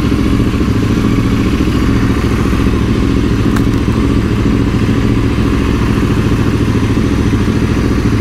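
A 2019 Royal Enfield Interceptor 650's 648 cc parallel-twin engine idling steadily through an aftermarket AEW exhaust, freshly started from cold with a BoosterPlug just fitted.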